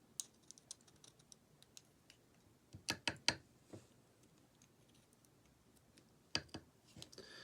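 Light clicks and taps of small metal lock parts being handled: a scatter of faint ticks in the first couple of seconds, a cluster of sharper clicks about three seconds in, and another pair a little past six seconds.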